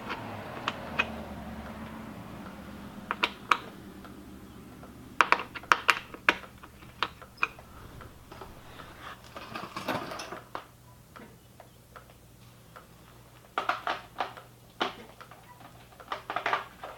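Irregular clicks and knocks of a ratchet and hand tools working on a car's plastic underbody cover and its fastener, some coming in quick pairs or small clusters.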